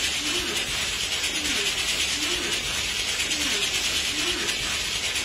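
Steady, rapid mechanical clicking and rattling, with a fainter lower sound repeating about once a second.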